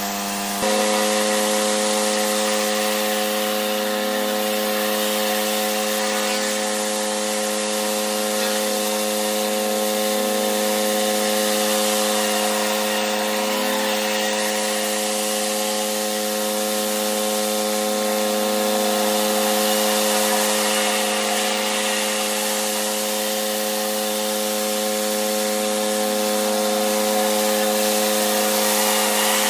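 Pressure washer running steadily with a constant machine hum, over the hiss of high-pressure water spraying onto block paving. It steps up slightly in loudness about a second in.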